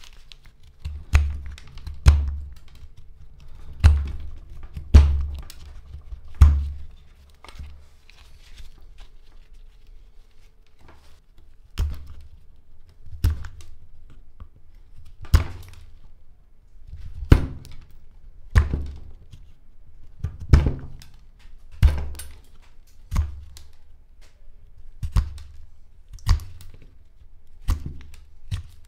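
Hand carving knives cutting hard black locust wood: one sharp snap with a dull knock at each stroke, one stroke every one to two seconds, with a pause of a few seconds about a third of the way in.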